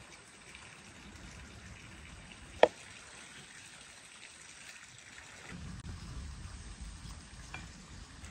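Quiet cutting and scraping of small knives peeling and slicing fresh pears by hand, with one sharp click about two and a half seconds in and a low rumble joining in the second half.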